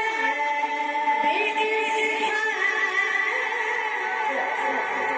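Melodic Quran recitation: a man's voice chanting one long, ornamented line, holding notes while the pitch winds up and down.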